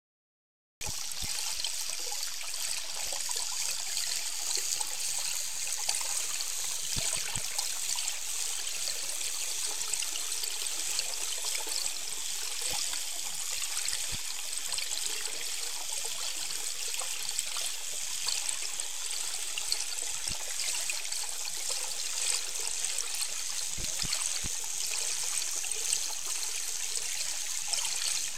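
Underwater ambient sound of the river picked up by the boat's underwater microphone: a steady watery hiss with scattered faint crackles, cutting in abruptly just under a second in.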